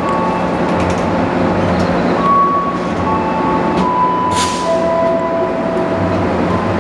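Passenger train running on the rails: a steady loud running noise with high squealing tones from the wheels that shift pitch every second or so, and a short hiss about four seconds in.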